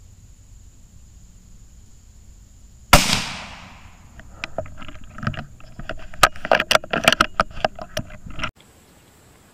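A single .17 HM2 rimfire rifle shot about three seconds in, sharp and loud with a short decaying tail. It is followed by a few seconds of irregular clicks and rustling, which cut off suddenly near the end.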